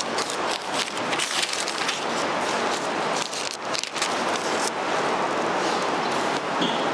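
Bible pages being turned and handled, a continuous papery rustling with many small crackles, picked up close by a clip-on microphone.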